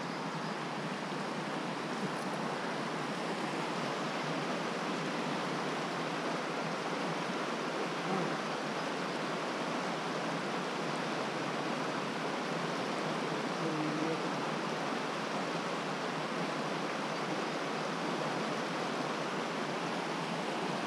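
Steady rush of a mountain creek's flowing water.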